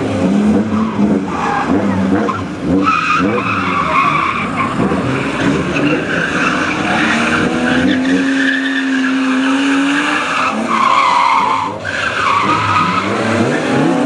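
BMW E36 saloon being drifted on wet tarmac: its engine revs rise and fall over and over, held high for a couple of seconds near the middle, while the tyres squeal through the slide.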